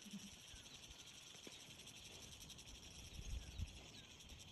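Insects, crickets or similar, chirring steadily with a fine rapid pulse. Faint short chirps sound here and there, and a few soft low thumps come a little after three seconds in.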